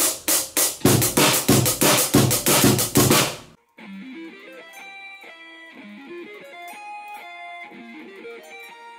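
A rapid drum-kit fill of loud snare and cymbal strikes for about three and a half seconds, then a quieter clean electric guitar playing a melody of single notes.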